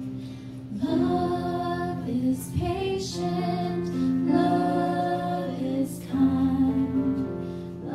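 Women singing a slow worship song in long held notes over keyboard accompaniment.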